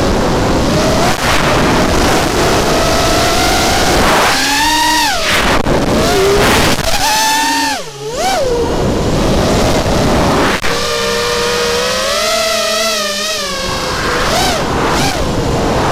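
Brushless motors and propellers of an FPV racing quadcopter whining, heard from its onboard camera. The pitch rises and falls with the throttle, dropping sharply and recovering about eight seconds in.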